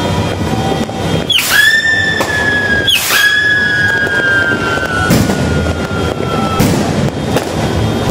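Two fireworks whistles overlapping, the first starting about a second and a half in and the second about three seconds in. Each opens with a sharp crack and then holds a shrill, slowly falling whistle for several seconds, over constant crackling of firecrackers.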